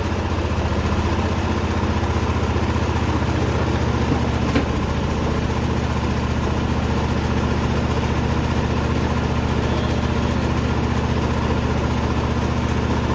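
Apache Premier 8500S diesel generator's engine running at a steady speed, with one short click about four and a half seconds in.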